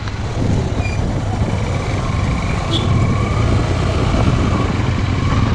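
Motorcycle engine running steadily at low road speed, a low hum with road and wind noise, heard from a helmet-mounted camera.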